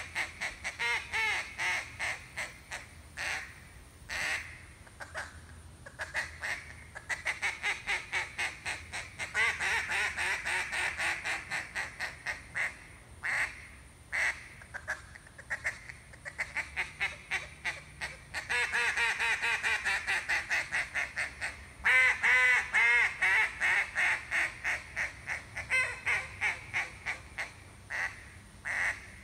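RNT Daisy Cutter duck call blown in a long run of quacking: strings of short quacks at different speeds, some slow and spaced, some fast and packed close, with short pauses between strings. The loudest string of quacks comes about three-quarters of the way through.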